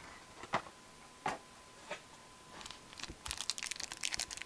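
Foil wrapper of a Fleer hockey card pack crinkling in the hands as it is handled and opened, starting about three seconds in, after a few scattered light clicks.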